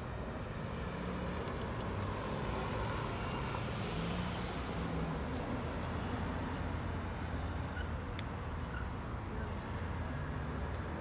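Cars driving slowly through a parking lot over a steady low engine rumble. A passing vehicle swells the tyre and engine noise about four seconds in, then it fades.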